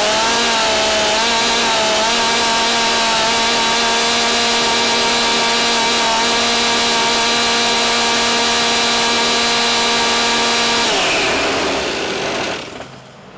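Stihl MS 362 C-M two-stroke chainsaw held at wide-open throttle with bar and chain fitted, running at a steady high pitch at about 14,100 RPM. About eleven seconds in, the throttle is let off and the engine note drops away and fades.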